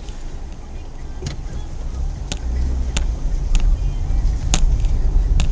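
A car driving, heard from inside the cabin: a steady low rumble of engine and road noise, with scattered sharp clicks and ticks.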